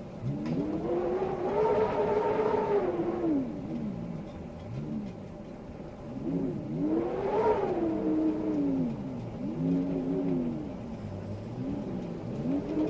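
Wind howling in slow gusts, its pitch rising and then falling with each gust: a long swell in the first few seconds, then shorter ones.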